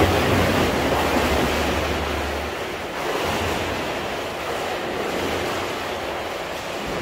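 Pool water splashing and churning as a swimmer swims fast front crawl. It is loudest in the first couple of seconds, then eases to a steadier wash as the swimmer moves away.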